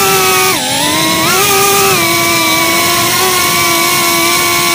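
FPV quadcopter's brushless motors and propellers whining, picked up close by the drone's onboard camera. The pitch dips briefly about half a second in, rises again, then holds fairly steady as the throttle settles.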